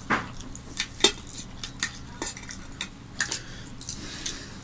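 Scattered light clinks and scrapes of fingers and a serving spoon against stainless-steel plates and bowls during a meal of rice and curry eaten by hand, about a dozen small clicks spread irregularly.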